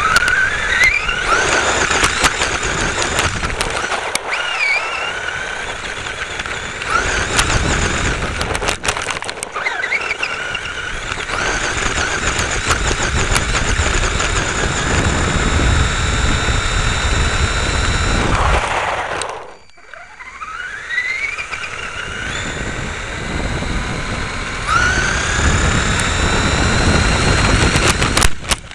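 Electric motor and gears of a 1/10-scale Thunder Tiger Phoenix BX 2 RC buggy whining, rising in pitch several times as it accelerates, over the rattle and crunch of its wheels on dirt, heard from a camera riding on the buggy. The whine drops away sharply about two-thirds of the way through, then builds again.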